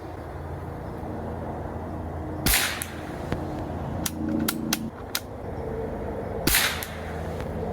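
Two shots from a Beeman Chief II Plus-S .22-calibre PCP air rifle, about four seconds apart, each a sharp crack with a short ringing tail. A few light clicks fall between them, over a steady low hum.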